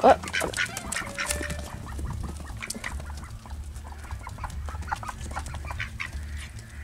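Backyard hens and ducks feeding on thrown bread scraps: soft clucking and short calls with many small quick ticks, the loudest call right at the start.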